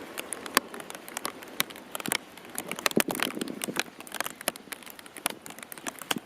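Rain falling, with drops landing close to the microphone as irregular sharp ticks, several a second, over a faint steady hiss.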